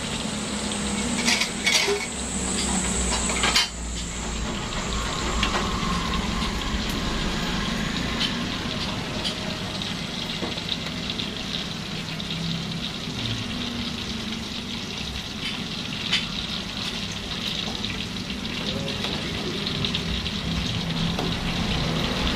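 Tofu frying in hot oil in a wok, a steady sizzle, with a metal spatula knocking and scraping against the pan now and then, most sharply in the first few seconds.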